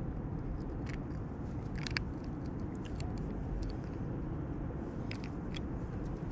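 A few light clicks and ticks from fishing pliers working a hook out of a small walleye's mouth, over a steady low rumble.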